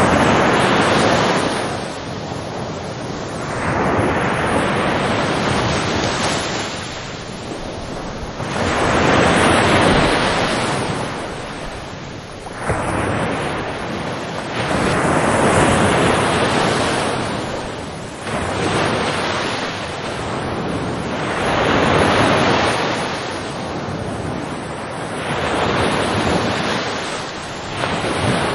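Ocean waves surging in and washing back in repeated swells, one about every three to four seconds.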